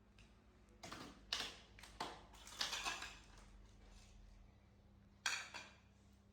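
A disposable diaper crinkling and rustling as it is handled, in about five short bursts with a longer pause before the last one.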